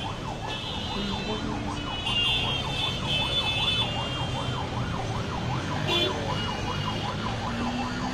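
Emergency-vehicle siren in a fast up-and-down wail, rising and falling about three times a second.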